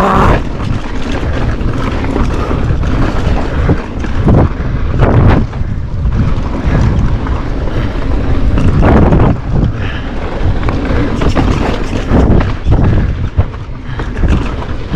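Wind buffeting the camera microphone at speed on a downhill mountain bike descent, with the rumble of tyres rolling over a dry, rocky dirt trail; the rush swells louder several times.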